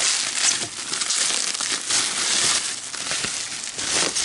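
Bubble wrap crinkling and crackling as it is handled and pulled away by hand, with many small irregular crackles.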